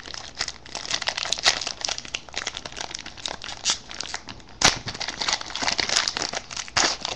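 Foil trading-card pack wrapper crinkling and tearing as it is opened and the cards are pulled out, a dense run of crackles with a sharper snap about four and a half seconds in.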